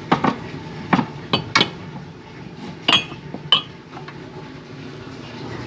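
Cups and dishes clinking and knocking together as they are handled, about six sharp knocks in the first four seconds, a couple of them ringing briefly.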